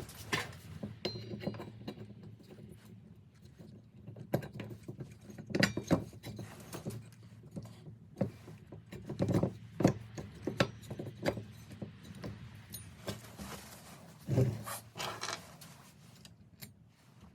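Small metal engine parts and hand tools being handled: irregular clinks, taps and knocks, with a few louder knocks spread through.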